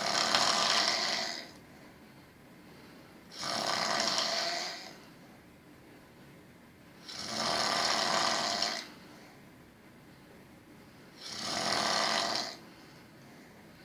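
Snoring: four long, noisy snores at a slow, even pace of about one every four seconds, with quiet stretches between them.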